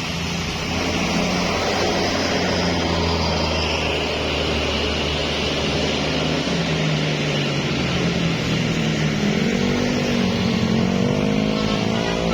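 Road traffic: a vehicle engine running steadily under load on an uphill bend, rising in pitch from about eight seconds in as it accelerates.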